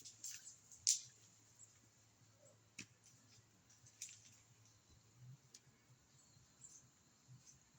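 Faint scattered clicks and ticks, the sharpest about a second in, over a low steady hum; no chainsaw running.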